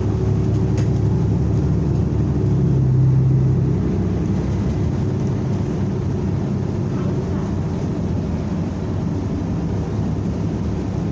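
Inside a New Flyer Xcelsior XN40 natural-gas city bus at road speed: the engine's steady drone under road noise, with the hum swelling briefly about three seconds in.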